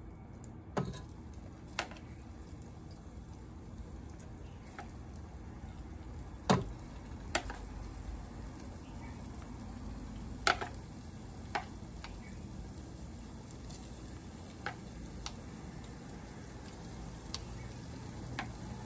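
Battered okra frying in hot oil in a pot, a steady low sizzle. Metal tongs click sharply against the pot now and then, about nine times, loudest about six and a half and again ten and a half seconds in.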